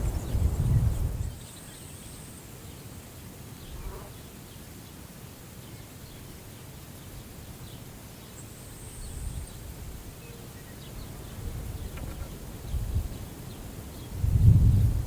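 Wind gusting across the microphone in low rumbling buffets, strongest in the first second and again near the end, with a quieter steady wind hiss between.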